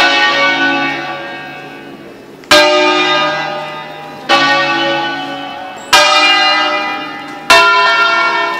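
Church bells of a six-bell ring in A, cast by Bizzozero, struck one at a time in the automated 'concerto solenne' sequence. Four strokes, about one and a half seconds apart, each followed by a long ring that fades while the next one sounds.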